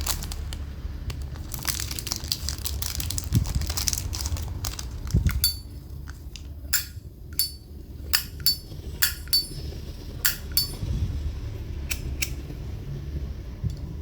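Vintage 1974 brass Zippo lighter being handled: rustling for the first few seconds, then about ten sharp metallic clicks with a bright ring, spaced through the second half, as from the hinged lid being flipped open and snapped shut.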